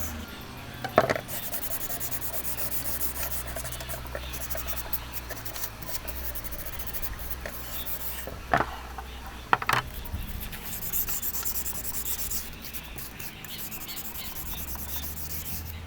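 Sandpaper rubbing back and forth on the rusty steel blades of grass shears, scouring off the rust. Three sharp knocks cut through it, one about a second in and two more around the middle.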